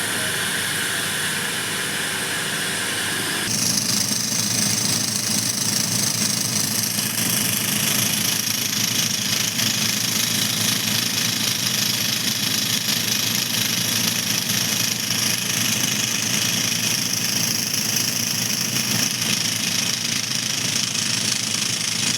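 Heavy drill machine running steadily on its engine; about three and a half seconds in it gets louder and a steady high hiss joins, as the drill works.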